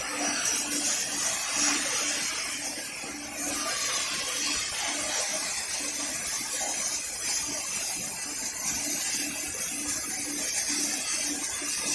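Robotic arc welder at work: a steady hiss, with a low hum pulsing about twice a second.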